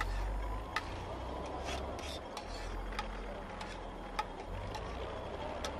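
Metal kitchen tongs clicking and scraping against a frying pan as cooked pasta is served out into a takeaway box: scattered sharp clicks at irregular spacing over a steady low hum.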